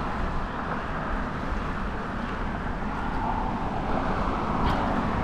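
Steady rumble of road traffic on the bridge, mixed with wind noise on the microphone.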